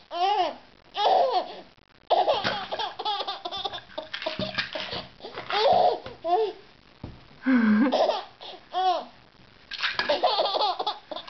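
A baby's hearty belly laughter in repeated short bursts with breathy gasps between them. Around the middle come a couple of light knocks from plastic pill bottles being stacked and toppled.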